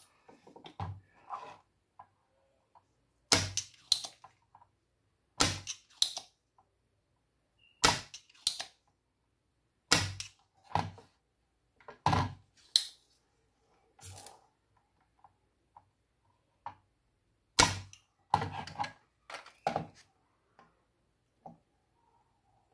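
About a dozen sharp snaps and clicks of hand tools working on a motherboard during desoldering, many in pairs about half a second apart, coming every two seconds or so with a short pause in the middle.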